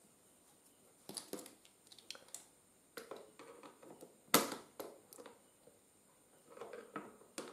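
Irregular clicks and scrapes of a hand tool tightening a cable terminal onto a battery post, with one sharp click about halfway.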